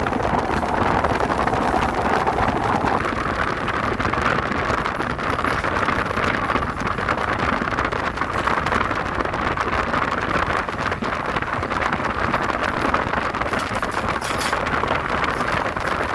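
Seoul Subway Line 2 electric train running across a steel railway bridge, a steady rumbling train noise, with wind buffeting the microphone.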